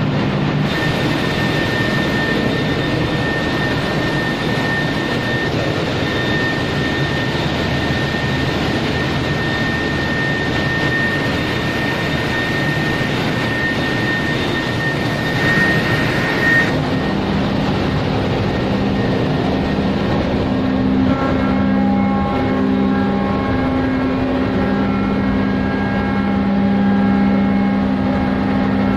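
Loud, steady machinery noise of a ship's engine room, running engines and pumps, with a steady high whine over a dense din. About two-thirds of the way through, the mix changes as several steady low hums come in.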